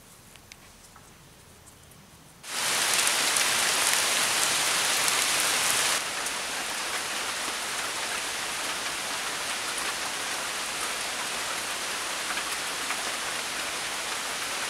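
Quiet at first, then heavy rain starts abruptly about two and a half seconds in: a steady, even downpour, loudest for the first few seconds and a little quieter from about six seconds in.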